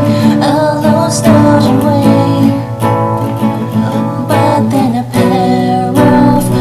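Song with strummed acoustic guitar and a singing voice.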